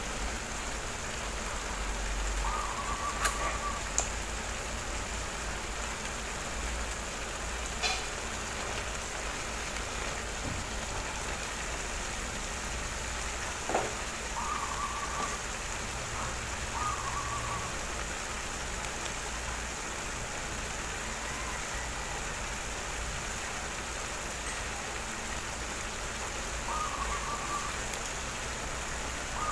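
Squash and vegetable stew simmering in a stainless steel frying pan, giving a steady fine crackling hiss, with a few faint clicks.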